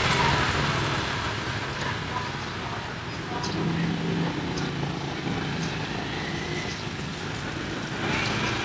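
Street traffic: a steady wash of passing road vehicles, with a faint engine hum in the middle.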